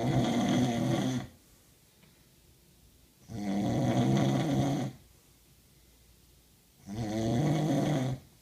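A person snoring loudly in a regular rhythm: three long snores, each about a second and a half, coming about every three and a half seconds with quiet breaths in between.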